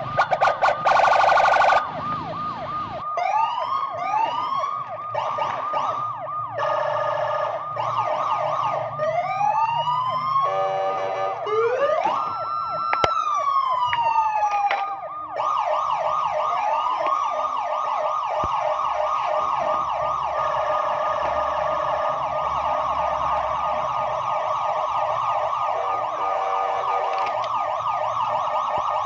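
Electronic toy police car siren cycling through several siren patterns: rising whoops, a slow rising and falling wail, and fast warbles. It switches pattern every few seconds, then settles into a steady fast warble about halfway through.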